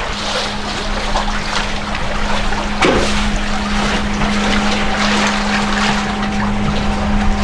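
A boat's engine running at a steady drone, a second steady tone joining it about halfway through, over wind and water noise, with a single sharp knock about three seconds in.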